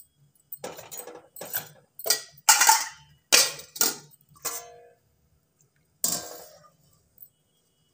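Steel utensils clanking against a steel kadhai: about eight short clanks with brief ringing over the first four and a half seconds, then a steel lid set onto the pan about six seconds in.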